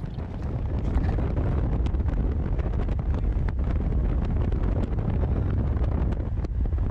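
Wind buffeting the microphone at the open window of a moving car, over a steady low road rumble. It builds up over the first second.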